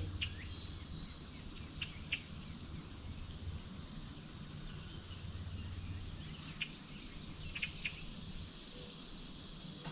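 Outdoor pond-side ambience: a steady high insect drone with a handful of short chirps scattered through it, and a low rumble near the start and again around the middle.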